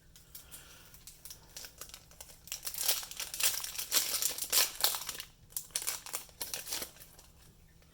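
Foil trading-card booster pack wrapper crinkling as it is torn open and pulled apart, loudest in the middle.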